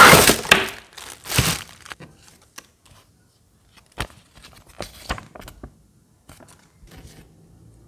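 Plastic bag crinkling and cardboard rubbing as a bagged desk fan is slid out of its cardboard box, loudest in the first second and a half. Then a few short paper rustles and taps as a folded paper manual is handled.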